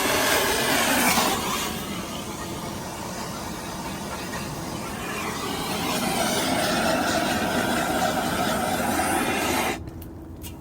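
A heating tool blowing with a steady hiss as the end of a nylon hose is warmed to soften it for pushing onto a fitting. It cuts off abruptly near the end.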